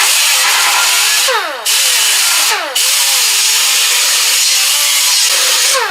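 A handheld impact wrench runs in three long bursts with a harsh, loud mechanical noise. It cuts out briefly twice, and its pitch falls each time the trigger eases off.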